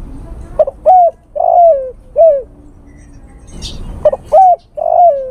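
Male spotted dove cooing its advertising call to a female: two phrases of short coos about three and a half seconds apart, each with one longer drawn-out coo in the middle.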